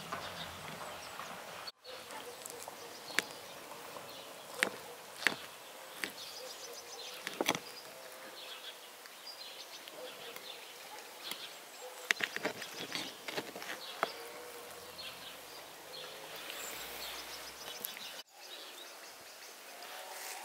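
Sharp clinks and taps of a knife and cutlery on ceramic plates as a layered crepe cake is cut and served, over a steady insect buzz.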